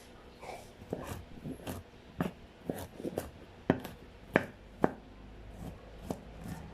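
About a dozen sharp knocks and clicks of hands-on kitchen work, irregularly spaced, the loudest a few taps about four to five seconds in.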